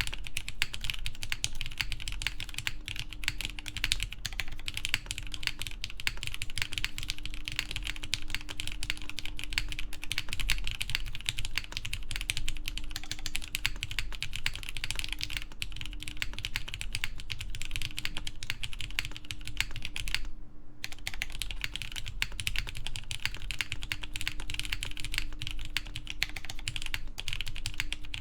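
Continuous typing on a Matrix 8XV3.0 mechanical keyboard: lubed Cherry MX Black Clear Top linear switches with 78g springs, GMK keycaps and a top-mounted aluminum plate, giving a dense run of keystroke clacks. There is a short pause about two-thirds of the way through.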